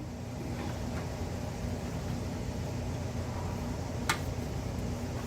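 A steady mechanical hum, with a single sharp click about four seconds in.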